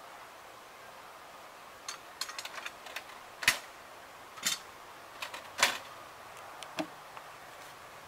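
Metal clicks and knocks from an RV door lock's handle assembly being pulled off and handled. A scatter of small clicks is followed by three sharper knocks about a second apart near the middle.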